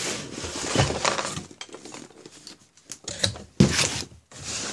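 Cardboard case being handled and turned over: rustling and scraping of cardboard, with two sharp knocks near the end.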